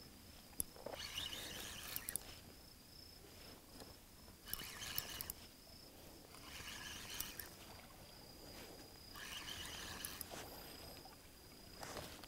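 A spinning reel being wound in short spells of about a second, a few times, as a hooked squid is brought in, with a few light clicks. Under it runs a faint, steady, high-pitched insect trill.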